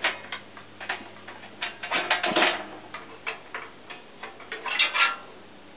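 Irregular clicks and knocks of hands working the controls and metal parts on top of an Arctic Cat Grass Cat lawn tractor's engine before start-up, with a cluster about two seconds in and another near the end. A faint steady low hum runs underneath; the engine is not running.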